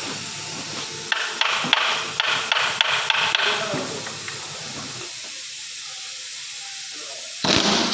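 Hammer blows on metal during a lorry gearbox repair: a quick run of about ten sharp knocks, roughly four a second, over a steady hiss, followed near the end by a sudden louder burst of noise.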